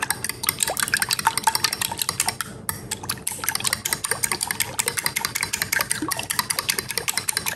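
Metal fork beating eggs and milk in a glass bowl: rapid, steady clicking of the fork against the glass over the slosh of the liquid, with a short pause a little before halfway.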